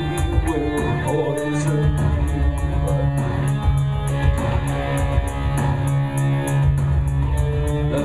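Live electronic-industrial band music: electric guitar and synthesizer over a heavy sustained bass and a steady, fast ticking beat.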